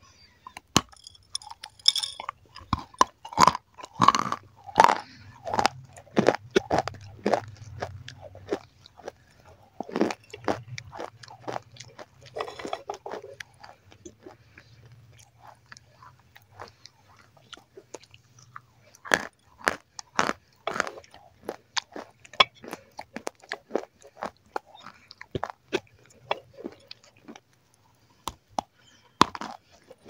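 Close-up crunching and chewing as small dry baked pots and cookie-like discs are bitten off and eaten: crisp sharp cracks with quieter chewing between. The bites come thick for the first dozen seconds, thin out, and pick up again after about 19 seconds.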